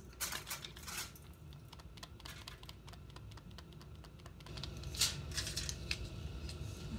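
Plastic-lidded spice jars handled and shaken over a fish: a run of small clicks and taps from the lids and jars, with a cluster of louder clicks about five seconds in.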